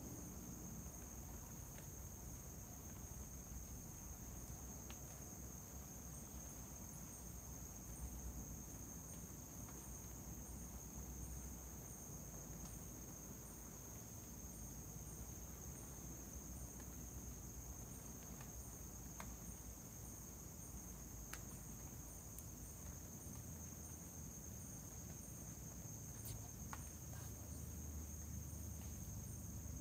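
Night insects, crickets, chirring: a steady high-pitched trill with a second, pulsing call above it, and a few faint clicks and rustles.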